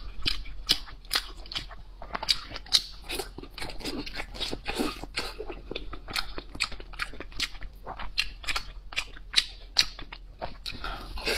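Close-miked chewing of braised pork belly: many irregular sharp mouth clicks and smacks, several a second.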